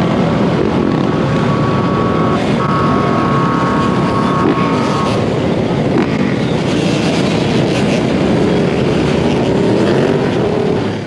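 Several dirt bike and ATV engines running and revving together, heard from the rider's own bike with rushing wind on the microphone. A steady high tone holds through the first half, then stops.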